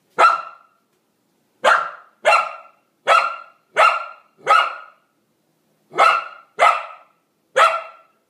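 A young dog barking: nine short, sharp single barks, coming in uneven bunches with pauses between them.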